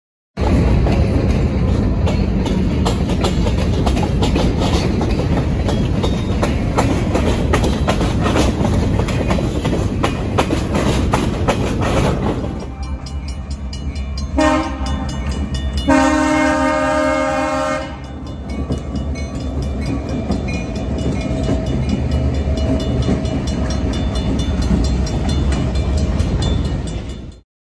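Freight cars rolling past with a steady rumble and wheel clatter. About halfway through the sound changes to a grade crossing: the crossing bell rings in quick, even strokes while the lead diesel locomotive sounds its air horn, a short blast then a longer one, and rumbles by.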